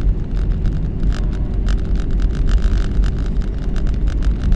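An old car driving along a road, heard from inside the cabin: a steady low engine and road rumble with a quick, light, irregular rattle over it.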